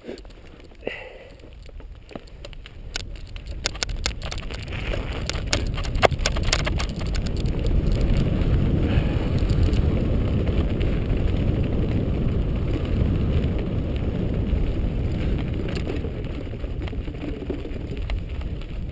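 Mountain bike riding noise through a GoPro's microphone: a low rumble of tyres on a dirt singletrack and wind on the microphone, with the bike's rattles and many small clicks. The rumble grows louder over the first several seconds, then holds steady.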